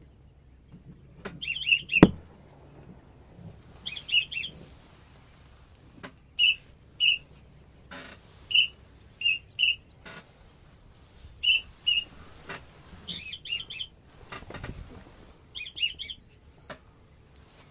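Whistled duck calls, high and short: quick trills of several notes alternating with single whistles, repeating every second or two. A sharp click about two seconds in.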